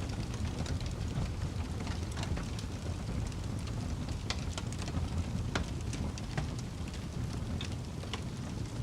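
A fire burning: a steady low rumble of flames with irregular sharp crackles and pops.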